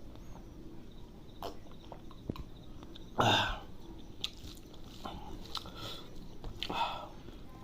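Close-up mouth sounds of a person eating chicken liver curry with rice: wet chewing and lip-smack clicks, with a louder noisy burst about three seconds in and a smaller one near the end.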